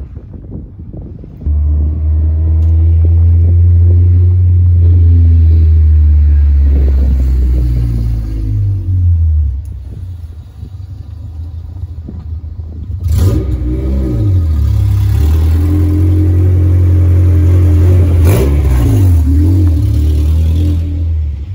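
Acura Integra's engine and exhaust as the car drives along the street, revving up and down loudly in two long stretches with a lull in between. A single sharp pop cuts through near the end of the second stretch.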